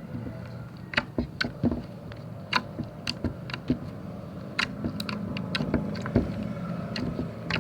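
Homemade slime being kneaded and squeezed by hand while colour is mixed in, giving irregular sharp clicks and pops. A steady low hum runs underneath.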